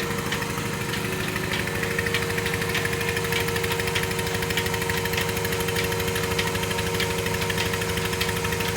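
Milking machine running steadily: a constant motor hum with a light regular click about twice a second.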